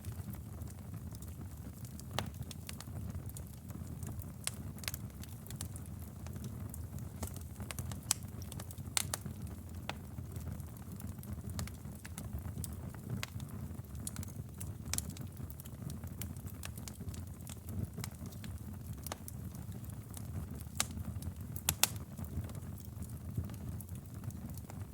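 Wood fire burning in a fireplace: a steady low rumble of flames with irregular sharp crackles and pops, a few louder pops standing out.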